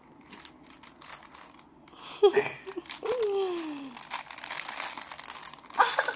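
Crinkly pages of a soft cloth baby book rustling and crackling as a baby grabs and handles them. Short vocal sounds come a couple of seconds in, including one falling in pitch, and again just before the end.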